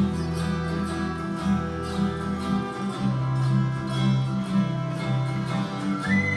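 Acoustic string band playing live: acoustic guitars strummed in a steady rhythm, with a fiddle.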